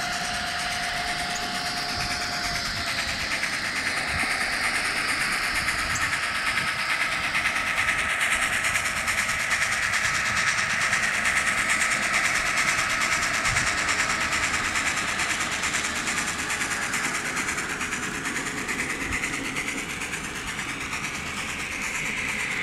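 An N scale model steam locomotive and its passenger cars running on the track. The small electric motor whines steadily over the hiss and rattle of the wheels on the rails, growing a little louder mid-way as the train passes close.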